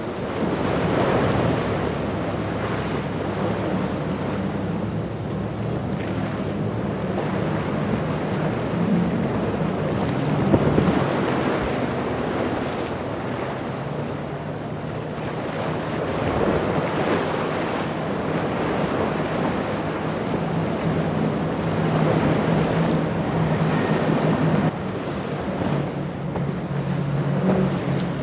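Multi-engine outboard boats running at speed through choppy water, a steady engine drone swelling and easing as each boat passes, under the rush of waves and spray and wind on the microphone.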